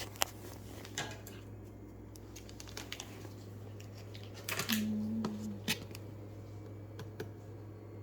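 Handling of an unboxed speaker and its packaging: scattered clicks and rustles, with a louder rustle about halfway through that carries a short, steady low tone lasting about a second.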